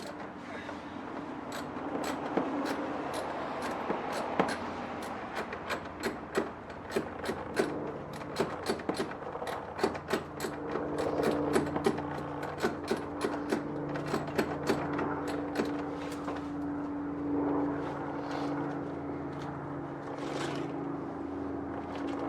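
Hand work on a car's front bumper: a long run of irregular sharp clicks and light scrapes from tools and fasteners, over a steady low hum that grows stronger about halfway through.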